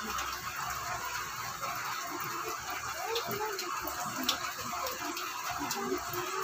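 Steady rain falling, with water dripping and splattering from hanging plant pots; a few sharp drip ticks, the loudest about four seconds in.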